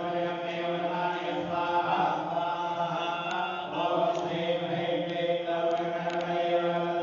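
Hindu priests chanting mantras in a continuous recitation, held mostly on one steady pitch.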